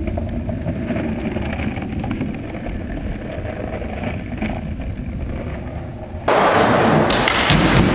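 Skateboard wheels rolling and rumbling on concrete. About six seconds in, a sudden much louder rush of noise starts, with a few sharp knocks near the end.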